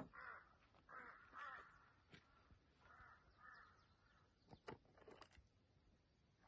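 A crow cawing faintly several times, with a few light clicks from a plastic food box being handled about two-thirds of the way in.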